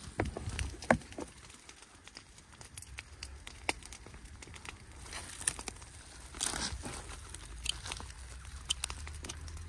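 Dry crop residue crackling and crunching: scattered sharp crackles, with a louder cluster about a second in and a longer rustle at about six and a half seconds.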